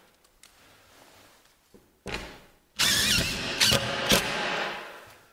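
Cordless drill-driver driving a screw up through an OSB ceiling board: a short burst about two seconds in, then a longer run of the motor with a wavering whine, two sharp clacks near the end, before it winds down.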